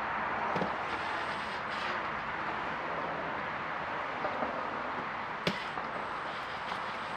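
Steady rushing background noise, with a faint knock about half a second in and another about five seconds later.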